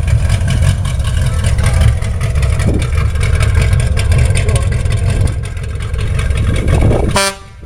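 Classic vehicle's engine running with a deep, steady rumble. The sound drops away sharply near the end.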